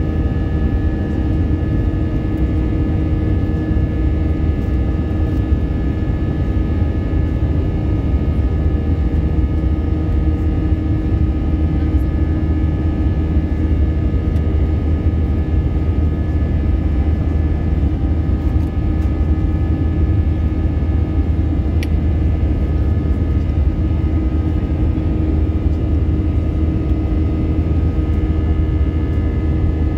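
Airbus A320 jet engines and airflow heard from a window seat inside the cabin during the climb after takeoff: a steady low rumble with several steady whining tones above it.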